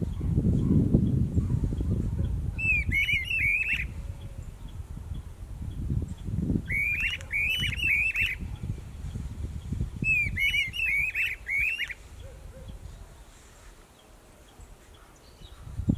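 A pair of streamer-tailed tyrants calling in duet: three bouts of quick, sharp repeated notes, a few seconds apart, over a low rumbling background noise.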